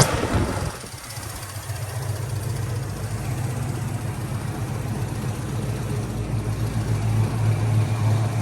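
Carbureted-to-EFI converted Chevelle V8 on Holley Sniper throttle-body fuel injection, dropping from a brief burst of revs in the first second to a steady idle.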